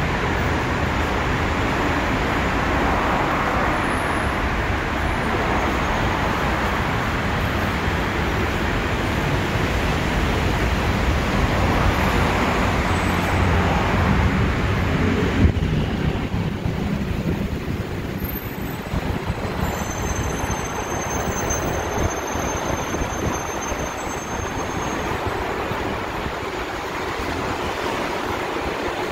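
Steady city traffic noise with a low rumble, swelling to a peak about halfway through and then easing a little.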